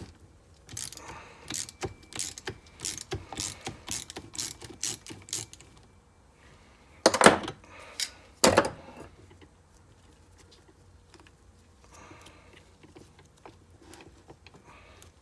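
A ratcheting driver clicking in quick strokes, about three clicks a second for several seconds, as a nut on the RC truck's gearbox shaft is turned. Then two loud clatters about a second and a half apart.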